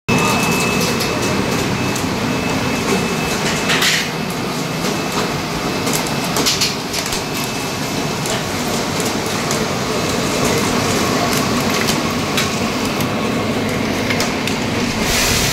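Rotary rinse-fill-cap (RFC) bottling machine running at speed: a steady mechanical din full of quick clicks and clatter from bottles and grippers, with a few short hissing bursts.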